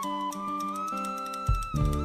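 Film score music: a high melody line steps up and holds a long note over sustained chords, with a low thump about a second and a half in and a deep bass chord entering near the end.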